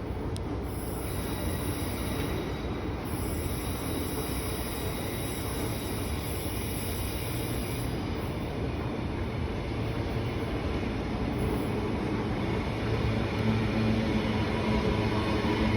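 Suburban electric passenger train running, a steady rumble that grows a little louder near the end, where a low hum comes in.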